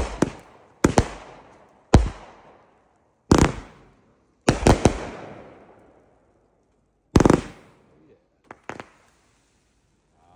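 Consumer aerial fireworks going off: a string of sharp bangs as shells launch and burst overhead, one to three seconds apart, each trailing off, with a quick double burst in the middle. Two smaller pops come near the end.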